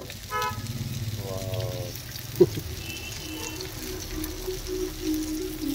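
Semolina-coated trout frying in oil in a cast-iron pan, sizzling and crackling steadily, with a sharp knock about two and a half seconds in.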